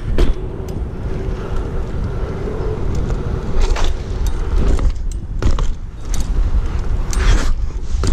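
BMX bike rolling over asphalt and concrete: a steady low rumble of the tyres on the ground, with the chain and loose parts rattling in short bursts a few times, mostly in the second half.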